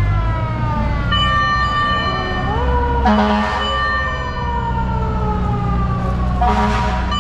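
Several fire truck sirens wailing together, each one sweeping up quickly and then falling slowly in pitch, over a steady low engine rumble. Two short hissing blasts cut in, about three seconds in and again near the end.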